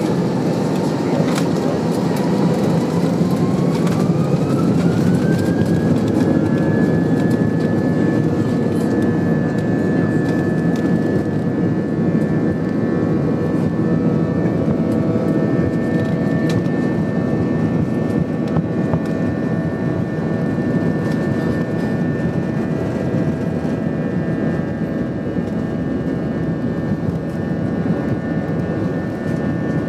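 Airbus A320's jet engines spooling up to takeoff thrust, heard from inside the cabin: a whine rises in pitch over a few seconds about three seconds in, then holds steady over a heavy rumble as the aircraft accelerates down the runway on its takeoff roll.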